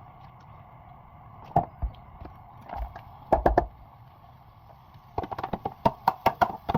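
A few scattered knocks of a utensil against a pan. About five seconds in, a quick run of clinks and scrapes begins, a spatula stirring food in a frying pan.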